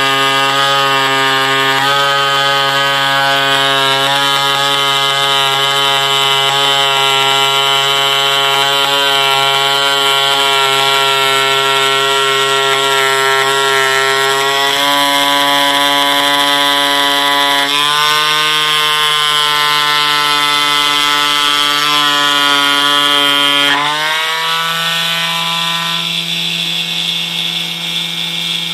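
CNC needle foam cutter running as it cuts foam board: a steady, pitched mechanical buzz from the needle drive and machine. Its pitch shifts a few times as the cut goes on; near the end it glides up and gets slightly quieter.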